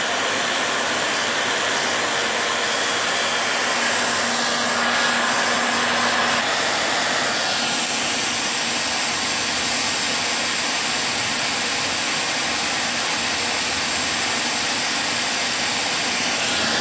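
Hot air gun running steadily, a continuous even rush of blown air.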